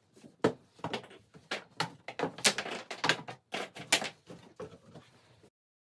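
Wooden shipping crate being taken apart by hand: a dozen or so sharp, irregular knocks, clicks and rattles of the plywood side panels, cutting off suddenly near the end.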